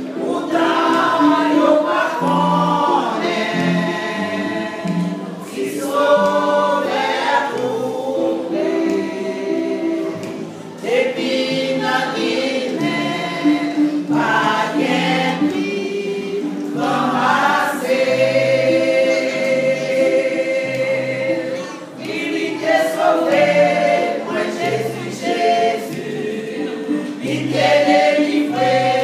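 A women's choir singing a hymn together, the notes sustained and changing every second or so.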